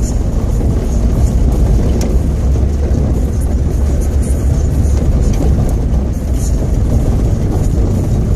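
Daihatsu Terios heard from inside the cabin, driving on a gravel track: a steady low engine and tyre rumble, with a few small clicks and rattles from the rough road.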